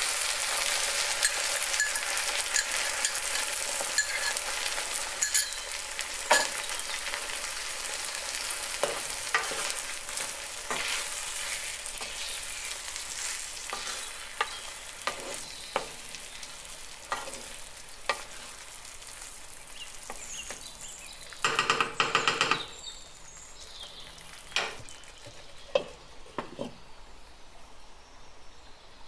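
Sauce sizzling in a hot frying pan of Brussels sprouts while a wooden spatula stirs, with scattered taps and scrapes against the pan. The sizzle fades steadily, and a short rattle comes a little over two-thirds of the way through.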